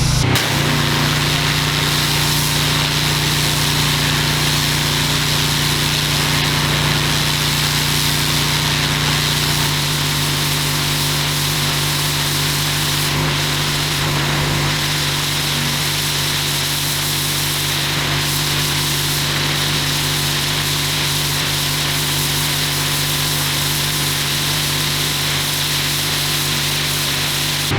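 Pressure washer running steadily: a constant motor hum under a continuous hiss of spraying water.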